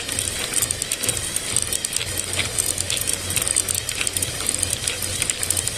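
Gear teeth and shaft of a manual gearbox clicking and rattling rapidly and irregularly as the shaft is worked, with a low pulsing hum underneath; the narration ties this to shaft play from damaged center or side bearings.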